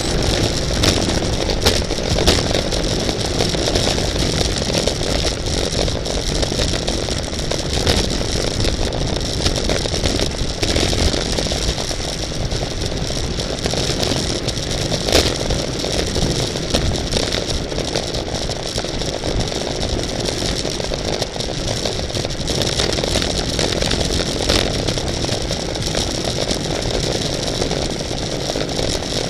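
Steady wind rush over a moving camera's microphone, mixed with the whir and rattle of a racing bicycle's chain and wheels, and scattered clicks.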